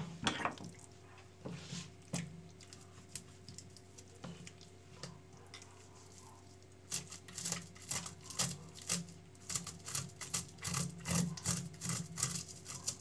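Kitchen knife scraping the scales off the skin of a salmon fillet on a wooden cutting board: a sharp knock at the start, a few slow scrapes, then quick strokes, about three a second, from about seven seconds in.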